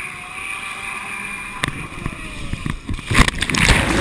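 Motorized surfboard running across the water with a steady rush of wind and spray. About three seconds in it gives way to loud, churning splashing as the rider wipes out and the board goes under.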